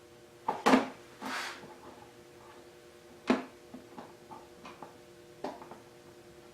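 Scattered clicks and knocks of hand work on a motorcycle windshield as its screws are started by hand, with a short scrape early on and a sharp knock about three seconds in, over a faint steady hum.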